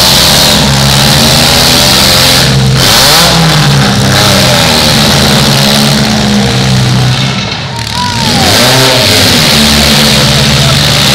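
Demolition derby car engines revving hard and unevenly, pitch rising and falling as the cars push and ram each other. Loud throughout, with a brief drop in level a little before 8 seconds in.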